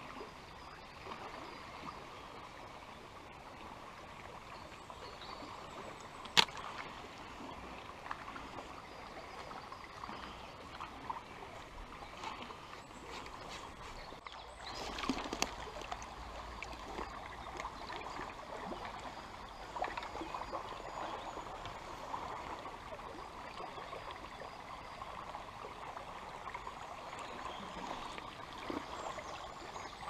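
A small stream running steadily over its bed. There is a single sharp click about six seconds in. From about halfway there are small splashes and scattered knocks as a hand works in the shallow water.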